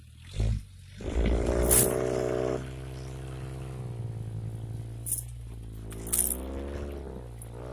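Lifted SUV's engine revving under load as it crawls up a steep rocky ledge, loudest about a second in, then pulling steadily with its pitch dipping and rising again near the end. A few sharp knocks are heard along the way.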